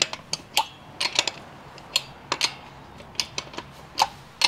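Socket wrench working the wheel nuts off a front wheel: a dozen or so sharp metal clicks and clinks at an uneven pace, some in quick pairs.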